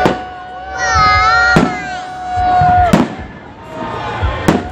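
Fireworks going off: four sharp bangs about a second and a half apart, over music with long held notes.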